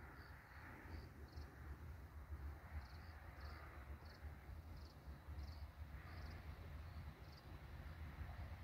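Crickets chirping faintly in short, high chirps at uneven intervals, over a soft low rumble.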